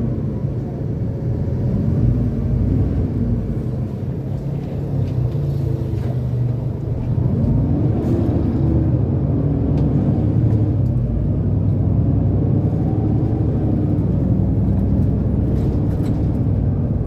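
Bus engine running with a steady low rumble, its engine note dipping and then rising again about seven seconds in.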